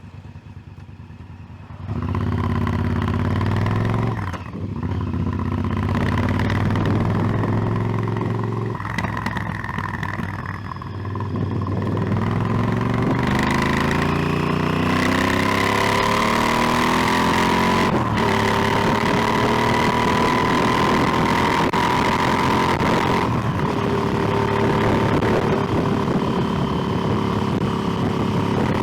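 Motorcycle engine coming in after a quieter moment and pulling through the gears, the revs dropping briefly at each shift. It then climbs in pitch and settles into a steady cruise.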